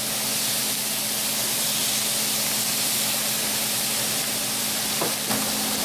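Thin pork chops sizzling on a hot stovetop griddle, a steady frying hiss with a low hum underneath. Two short knocks come about five seconds in.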